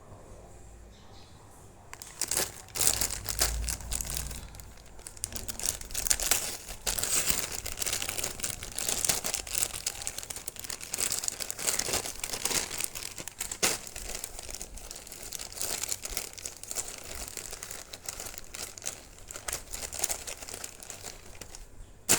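Packaging crinkling and crackling as it is handled and unwrapped by hand. The crackling starts about two seconds in and continues in dense, irregular rustles.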